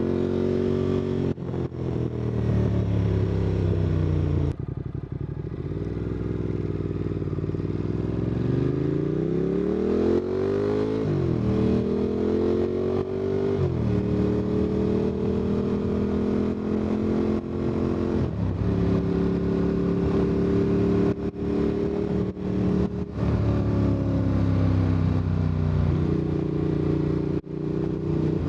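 Motorcycle engine accelerating through the gears. The revs climb and then drop sharply at each of several upshifts, then settle to a steady cruise. It is picked up by a wireless mic tucked inside the rider's jacket.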